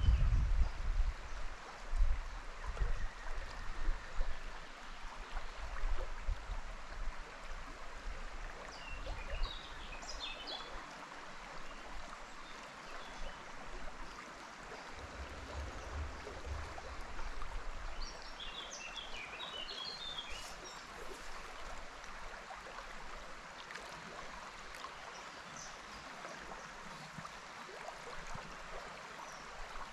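Steady rushing of river water, with a small bird chirping in two short bursts, around ten and twenty seconds in. Low rumbling knocks come and go in the first half.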